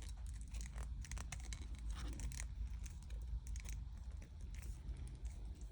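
Insulated electrical wires being twisted together for a wire nut joint: faint, irregular scratchy clicks and scrapes of the wires being worked.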